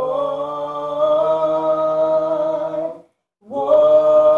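A man singing a worship song unaccompanied, holding a long note on 'our', breaking off briefly about three seconds in, then singing 'Lord'.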